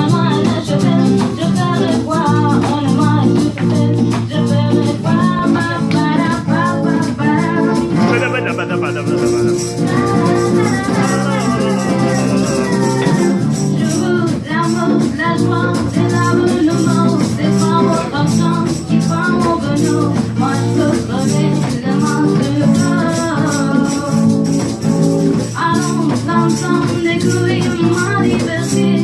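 Someone singing a French chanson over a karaoke backing track with acoustic guitar and a shaker keeping the rhythm.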